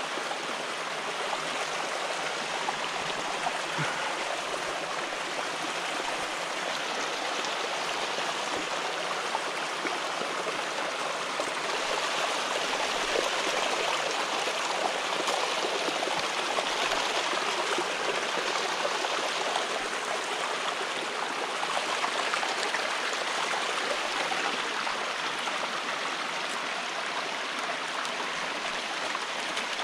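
A small mountain stream running and splashing down a steep rock face, steady throughout.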